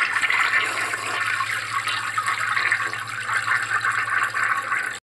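Toilet flushing: a steady rush of swirling water that cuts off suddenly near the end.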